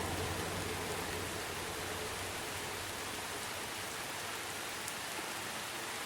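Steady rain falling, an even hiss, with the low rumble of a passing train dying away in the first second or so.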